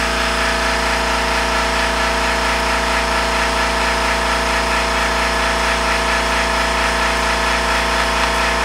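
Air compressor running steadily, an even, unchanging machine hum.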